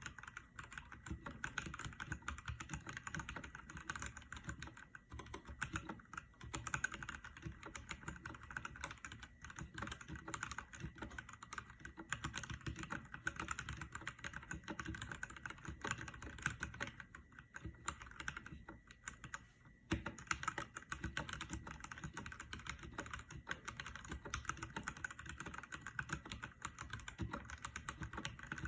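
Mechanical keyboard being typed on fast and steadily, a dense run of key clacks, with a short lull about two-thirds of the way through before the typing picks up again.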